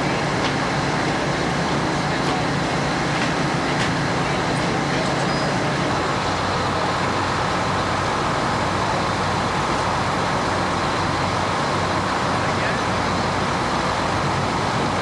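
Fire engines running steadily, a constant engine hum under a wash of noise, with voices in the background. The hum changes pitch about six seconds in.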